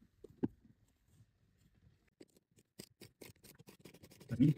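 Hand ratchet with a 10 mm socket clicking as a bolt is undone, a quick even run of clicks starting about two seconds in.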